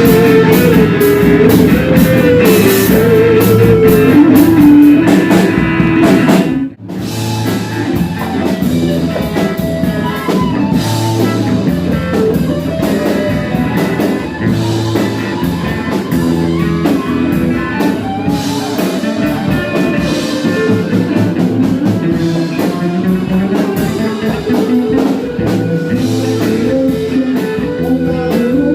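Rock-style music with guitar and drum kit, playing loudly; the sound cuts out for a moment about seven seconds in, then the music resumes.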